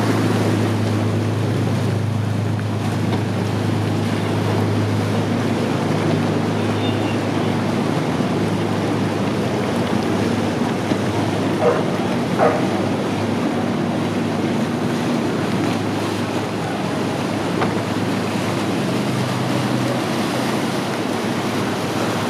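Motorboat engines droning steadily on a canal over a constant rush of wind and water, with two short high cries about halfway through.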